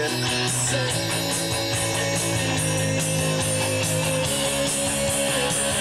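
Rock band playing: drums with a steady cymbal beat, bass, and electric guitar, with one long note held from about a second in until near the end.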